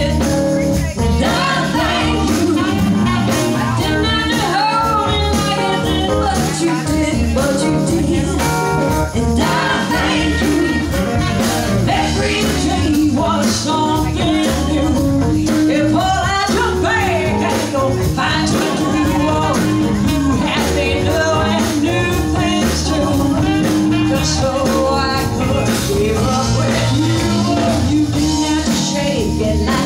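Live band playing a soul song: a woman singing lead over electric guitar, bass guitar, drums and hand percussion.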